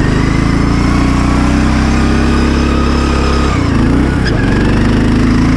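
Poulan riding lawn mower's engine running steadily under throttle, its pitch wobbling and dipping briefly about three and a half seconds in before settling back to a steady note.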